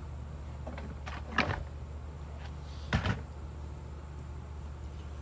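A few short knocks and clunks, the loudest a double knock about three seconds in, over a steady low hum.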